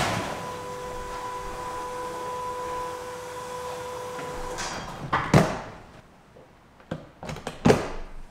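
A car door being handled, with several sharp clunks and knocks, the loudest about five and seven and a half seconds in. A steady two-note tone runs underneath for the first four seconds or so.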